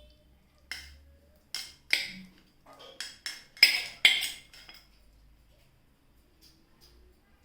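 A metal spoon clinking and tapping against a bowl and pan, about eight sharp strikes over roughly four seconds, loudest near the middle, as fried chicken pieces are spooned onto the omelet.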